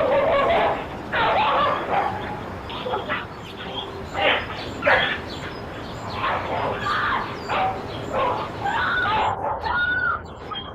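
A dog making a string of short, uneven calls, heard through a doorbell camera's small microphone.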